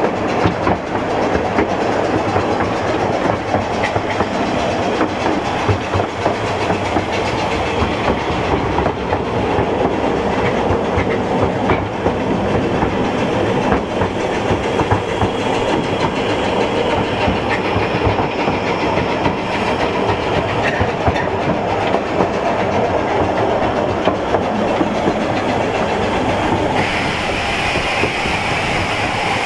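Narrow-gauge steam railway train running steadily along the track, its carriages rumbling and clattering. A higher hiss joins near the end.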